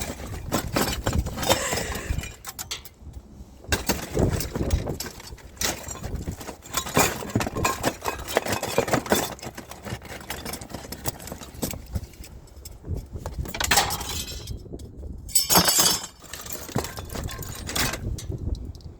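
Scrap metal odds and ends being rummaged through and tossed aside by hand: a continual irregular run of clinks, rattles and clattering knocks, loudest in a burst about three-quarters of the way in.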